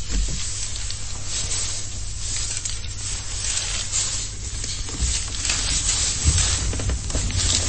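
Steady low hum and hiss of background noise, with faint rustles and soft knocks here and there.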